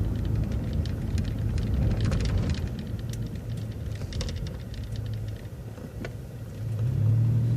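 City bus engine running low and steady, heard from inside the cabin, with scattered light rattles and clicks. The engine grows louder about seven seconds in.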